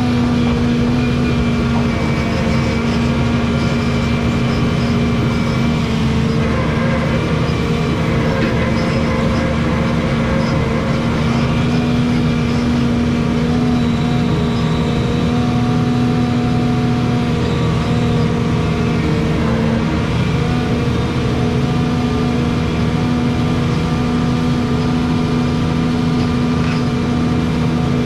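Volvo 235EL excavator's diesel engine running steadily under load as the boom and tiltrotator work. It is a constant drone with a steady whine.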